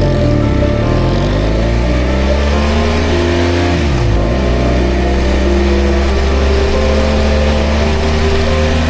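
BMW dual-sport motorcycle engine under way, with engine speed dropping and climbing back about four seconds in, as at a gear change, then holding steady.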